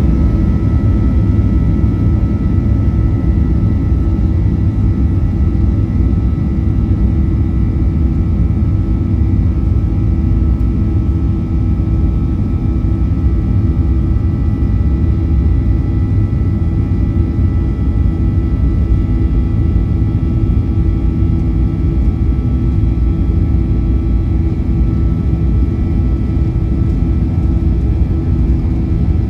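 Boeing 737-800's CFM56-7B turbofans running at high thrust, heard inside the cabin: a loud, steady rumble with several held tones over it, the fan 'buzzsaw' from the blade tips turning faster than sound.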